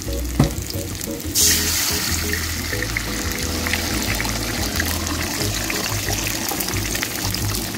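Raw chicken eggs poured into hot oil in a wok hit the oil suddenly about a second and a half in and sizzle loudly, settling into a steady frying sizzle. A single sharp knock comes shortly before.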